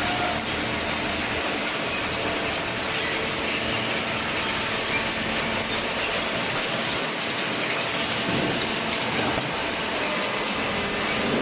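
Vertical hydraulic baler for shredded paper running: a steady mechanical noise with a faint hum underneath.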